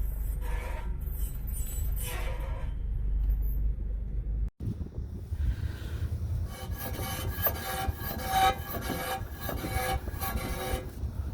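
A car's engine runs with a low rumble under a metallic, tonal squeal that grows stronger in the second half. The noise comes from accident-damaged metal parts, made worse by cold weather contracting the metal.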